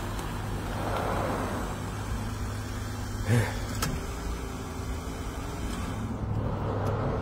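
Minivan engine running as the van creeps forward at low speed, a steady low hum, with one short thump about three seconds in.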